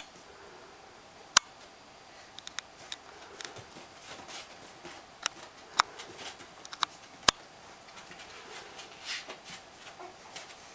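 Three-week-old Siberian husky puppies scrabbling about on a vinyl-covered mattress: irregular sharp clicks and taps of claws and paws, with soft scuffling between them and a louder rustle near the end.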